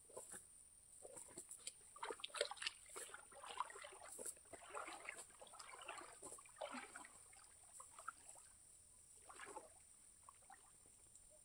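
Faint, irregular water splashing and dripping with light rustles, clustered between about two and seven seconds in and again near the end: a cast net being hauled in from the water.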